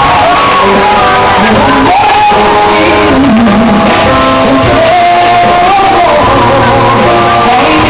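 A woman singing a pop ballad live with band accompaniment including guitar.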